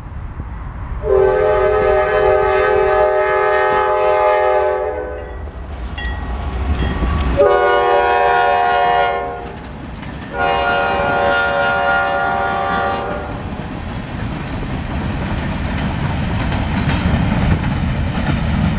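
A freight train's diesel locomotive horn sounds three blasts: a long one of about four seconds, a shorter one of about two seconds, then another long one. After the horn stops, the freight cars rumble and clatter past on the rails, growing louder toward the end.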